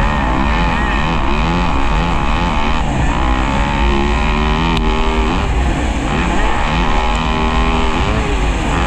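Motocross bike engine revving hard, its pitch climbing and dropping again and again as the throttle is worked and released, with a constant low rumble underneath.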